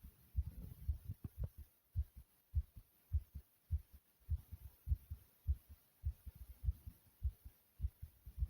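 A human heartbeat beating fast, each beat a low double thump (lub-dub), about 100 beats a minute. The heart is racing after 40 jumping jacks and a sudden choking spell.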